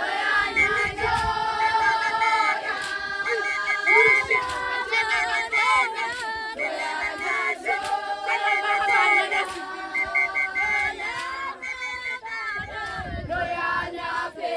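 A group of young women singing a Zulu song together, many voices holding long notes, with crowd voices underneath.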